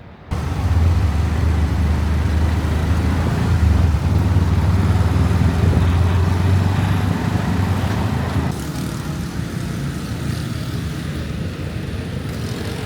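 Street traffic: motor vehicles running close by, a steady low rumble under a wash of road noise. It starts abruptly just after the start and eases a little about eight seconds in.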